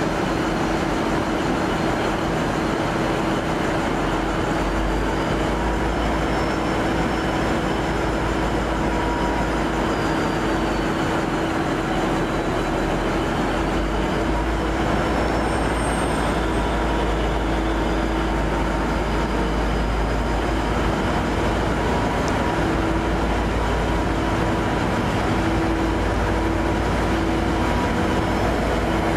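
V/Line N Class diesel locomotive running steadily: a deep engine rumble under a constant hum, with a faint high whine that slowly rises and falls.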